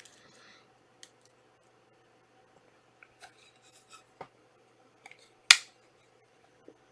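Trading cards and their packaging being handled: light rubbing and sliding sounds with scattered small clicks, and one sharp snap about five and a half seconds in.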